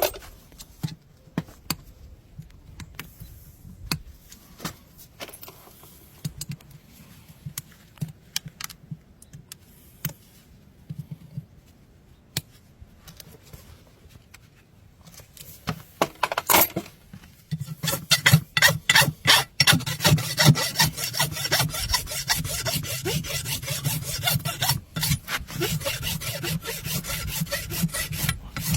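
Farrier's tools scraping and rasping a horse's hoof. There are scattered light scrapes and clicks at first, then from about halfway on, rapid repeated scraping strokes, several a second.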